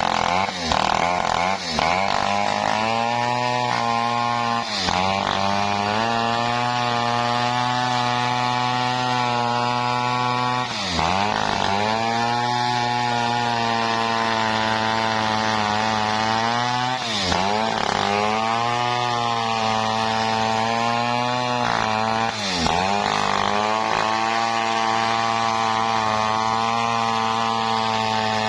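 Stihl 070 two-stroke chainsaw running steadily under load, ripping lengthwise through a teak log. Its engine note sags briefly and recovers four times, about every five to six seconds.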